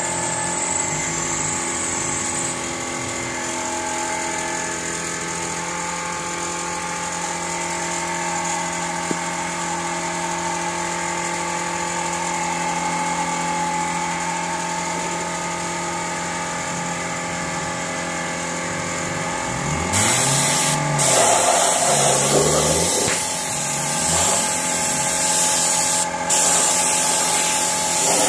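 Spray equipment for under-chassis painting: a machine drone with a steady whine. From about 20 seconds in it is joined by a loud hiss of spraying that cuts out briefly twice.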